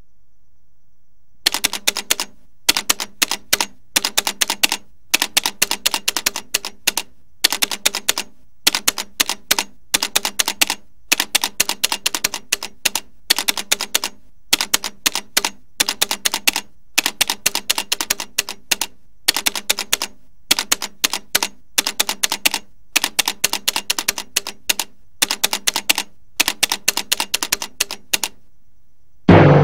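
Typewriter keys clacking in quick runs of strokes, with short pauses between the runs, as text is typed out. A single loud, deep hit comes right at the end.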